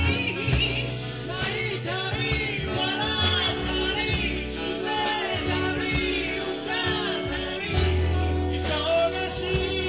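Live band playing a soul-rock song: drums keep a steady beat under a bass line, with a sung or played lead melody over the top.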